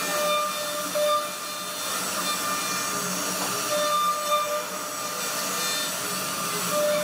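CNC router spindle running with its bit milling a relief carving into a wooden board: a steady whirring hiss of cutting, with a short whine that comes and goes several times as the bit moves through the wood.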